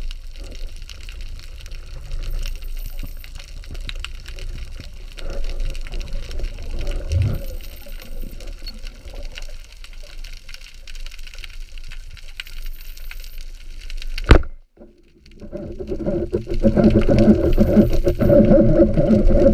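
Muffled underwater water-rush heard through a diving camera's housing. About 14 seconds in comes one sharp crack, a speargun firing at a fish. The sound cuts out for about a second, then returns as louder muffled noise.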